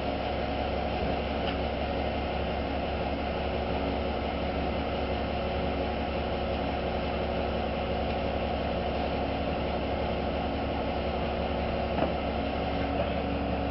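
Kato mobile crane's diesel engine running steadily while it holds and lowers a fishing boat slung from its hook. A single sharp knock sounds near the end.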